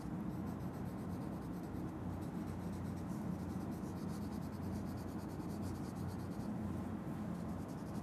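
Wax crayon scribbling on drawing paper in rapid, continuous back-and-forth strokes, soft and steady, as turquoise is blended over blue.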